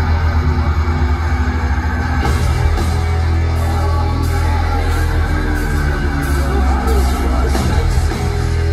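Heavy metal band playing live through a loud concert PA, heard from the crowd, with heavy distorted low end. A fast low pulsing for the first two seconds gives way to regular sharp cymbal-like hits, about two a second.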